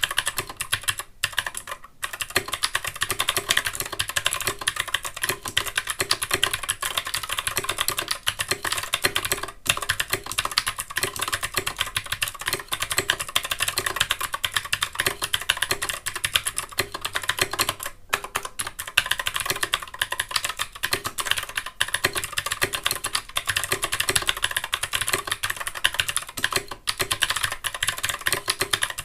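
Anne Pro 2 60% mechanical keyboard being typed on fast and without a break: a dense stream of key clacks, with only a few short pauses.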